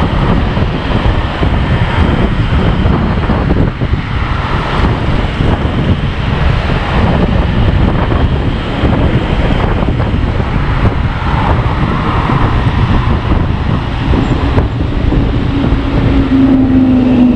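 Honda PCX scooter riding through city traffic, its single-cylinder engine running under heavy wind rumble on the microphone. A steady hum comes in near the end.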